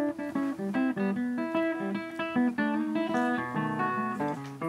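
Background music: a guitar picking a quick run of plucked notes.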